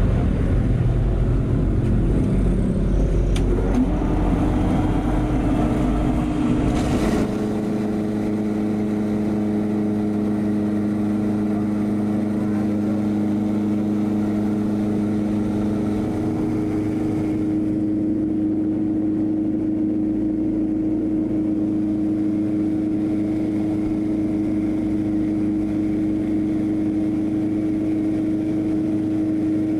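Corn grinding mill running steadily while cracking dried corn kernels, a loud mechanical grinding over a steady motor hum. About seven seconds in the rough grinding noise drops away, and the steady hum carries on.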